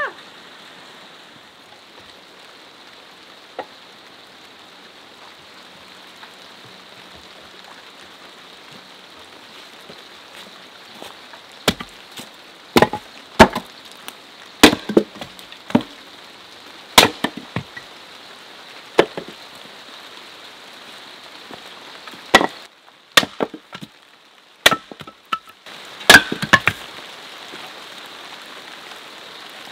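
A small axe splitting kindling on a wooden chopping block: a dozen or so sharp chops at an uneven pace, starting about twelve seconds in after a stretch of steady soft hiss.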